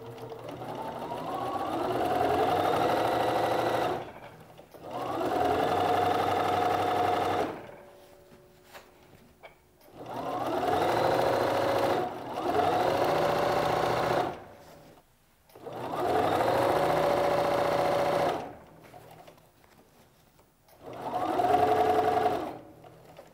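Bernina sewing machine stitching in about six short runs of two to four seconds each. Its motor whine climbs in pitch as it speeds up and cuts off between runs while the fabric is repositioned.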